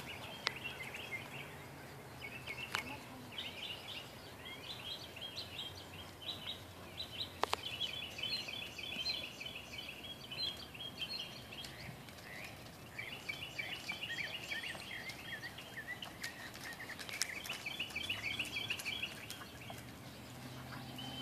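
Small birds chirping in quick repeated trills, over a steady low hum, with a couple of sharp clicks early on.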